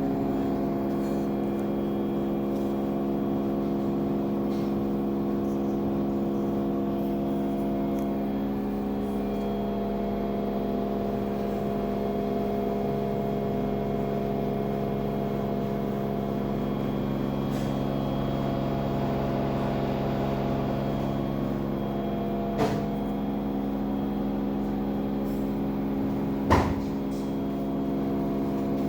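LG 10 kg front-load washing machine's motor running with a steady drone of several pitches, the motor noise that the owner presents as a fault. A lower hum joins for several seconds midway, and two sharp knocks sound near the end.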